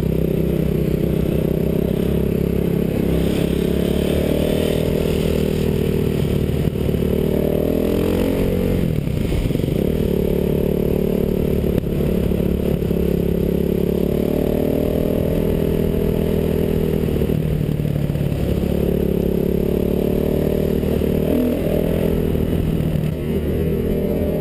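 Dirt bike engine running at riding speed, heard close up from the rider's helmet. Its pitch dips and climbs back a few times as the throttle is eased and reopened.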